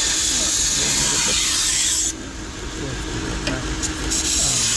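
Steel knife blade being drawn along the running abrasive belt of a Toolker 1x30 belt grinder: a grinding hiss that stops about two seconds in and starts again about four seconds in, over the steady hum of the grinder's motor.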